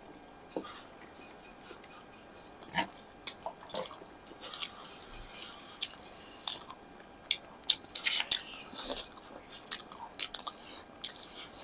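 Close eating sounds: chewing and biting with irregular crunches and wet clicks, more frequent in the second half.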